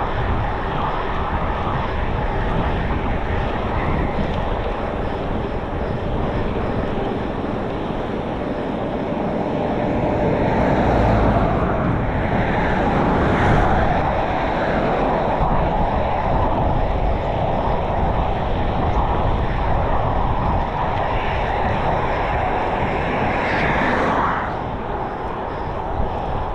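Wind rushing over a chest-mounted camera's microphone while cycling, mixed with road traffic noise. The noise swells louder around the middle and again just before the end.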